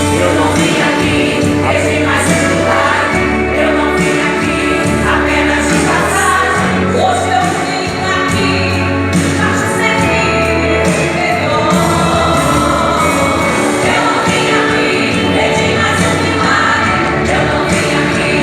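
Gospel worship music: a group of voices singing together over a band with a steady bass.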